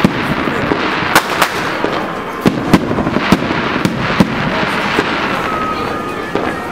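Many fireworks and firecrackers going off at once: a dense, continuous crackle with frequent sharp bangs at irregular intervals, the loudest about a second in. A faint steady whistle sounds near the end.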